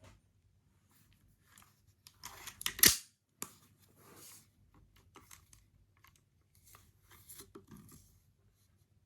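Scattered handling noises: short clicks, rustles and scrapes, loudest in a cluster about two to three seconds in.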